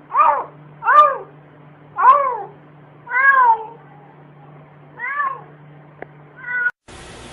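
Domestic cat meowing over and over, six meows about a second apart, each rising then falling in pitch. Near the end the sound cuts off suddenly.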